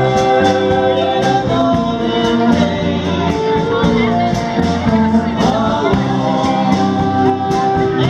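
Live rock band playing: a singer over electric guitars and drums, with a steady cymbal beat.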